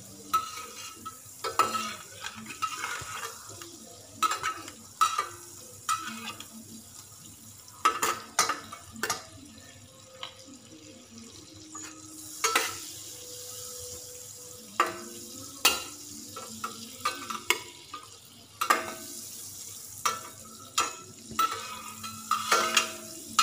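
A metal spatula scraping and clinking irregularly against a stainless steel saucepan as Planta margarine is stirred, the margarine melting and sizzling in the pan.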